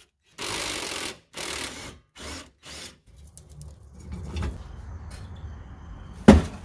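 Cordless Ryobi ONE+ power tool run in four short bursts, spinning out the 13 mm fuel-tank strap bolts. A single sharp thump near the end is the loudest sound.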